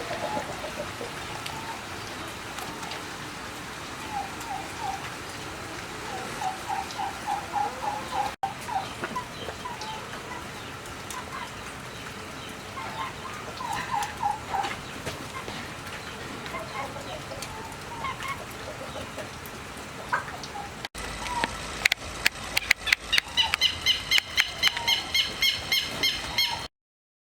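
Domestic turkeys gobbling: several short bursts of rapid rattling notes over a steady background hiss. In the last few seconds a louder, higher-pitched fast series of bird calls comes in, then the sound cuts off.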